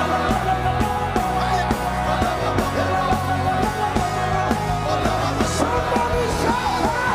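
Live praise music from a band, with a steady drum beat and bass, and voices singing over it.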